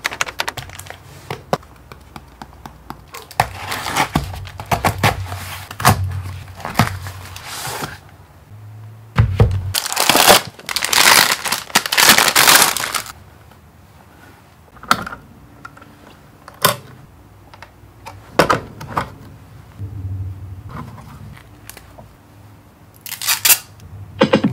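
Packaging being handled and opened: knocks, thunks and tearing from a cardboard box, and a plastic bag crinkling loudly for a few seconds about ten seconds in, with scattered taps and rustles as the contents are lifted out.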